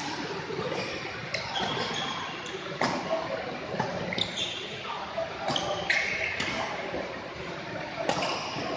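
Badminton rally: rackets striking the shuttlecock with a sharp crack about once a second, several strikes followed by short high squeaks, with voices in the background.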